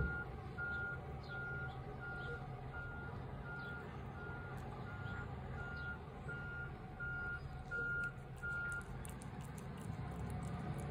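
Garbage truck's reversing alarm beeping at one steady pitch, about two beeps a second, over the low rumble of the truck; the beeping stops about nine seconds in.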